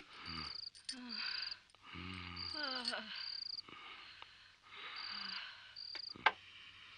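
Crickets chirping in short high trills repeated every second or so, with a person's low, wordless vocal sounds between them and a sharp click about six seconds in.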